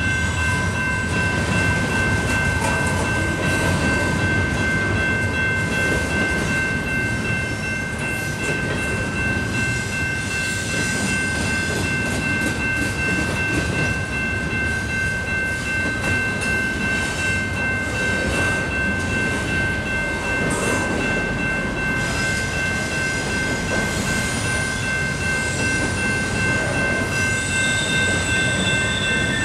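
Double-stack intermodal freight train's well cars rolling past at speed: a steady, loud rumble of steel wheels on rail, with clicks as the wheels cross the track. Steady high-pitched tones ring over it throughout.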